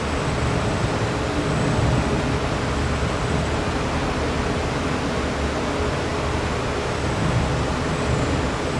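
A bank of large electric fans blowing wind across a wave tank: a steady rushing noise with a constant low hum.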